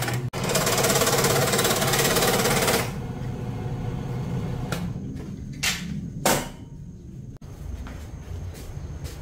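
A power tool running loudly for a few seconds and then stopping. A low hum is left, broken by a few sharp knocks, typical of wood and tools being handled.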